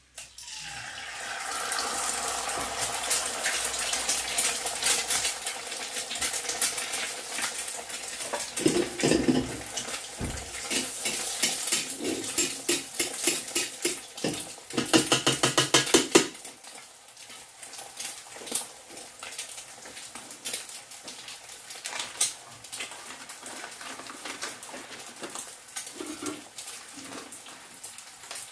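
An egg in hot oil in a wok starts sizzling just after it goes in. A metal spatula scrapes and clanks against the wok for several seconds in the middle. After that the sizzle carries on more quietly and steadily.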